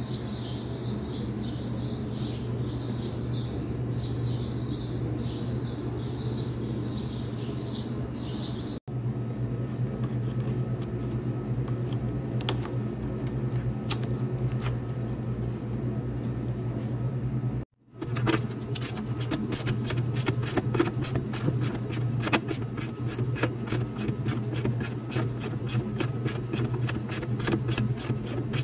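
A steady low mechanical hum, with birds chirping over it through the first third. In the last third, many rapid small clicks and knocks come from hand work on a truck's tail lamp bracket.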